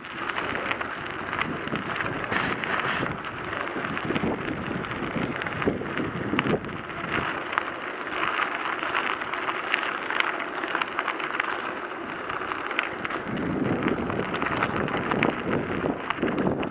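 Mountain bike riding over a gravel road: steady tyre noise on the gravel with many small clicks and rattles, and wind buffeting the microphone.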